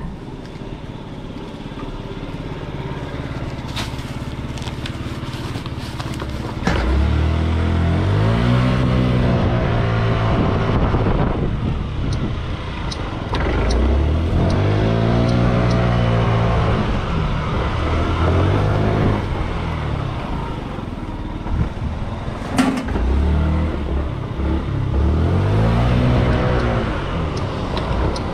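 Small engine of a Yamaha delivery scooter being ridden, revving up and falling back three times as it pulls away and slows between stops. A few sharp clicks come before the engine grows loud about seven seconds in.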